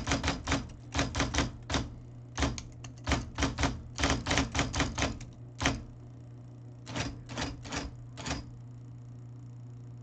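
IBM Correcting Selectric III electric typewriter typing: runs of quick sharp clacks as the type ball strikes, several a second, over a steady low hum. The typing stops about eight seconds in, leaving only the hum.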